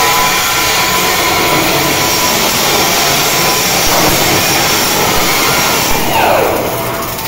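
Flux-cored arc welding: the wire-fed arc sizzling steadily without a break. About six seconds in, the sizzle thins and a short falling whine is heard.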